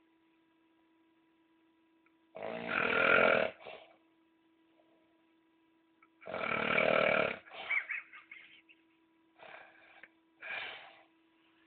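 Loud, rattling snoring: two long snores about four seconds apart, followed by a few shorter, softer snorts and breaths.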